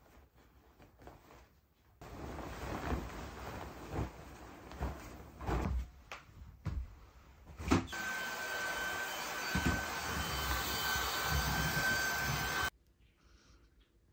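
Vacuum cleaner running with knocks and bumps as it is moved about. Later its motor settles into a steady whine over the rushing air, then it cuts off suddenly near the end.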